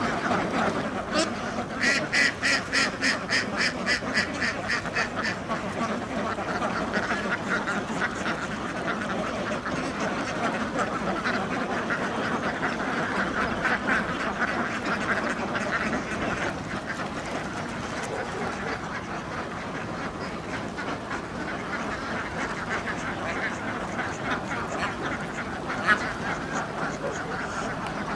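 A large flock of domestic ducks quacking together in a constant clamour. A few seconds in, one duck close by quacks loudly in a quick run of about five quacks a second, and a single sharp click sounds near the end.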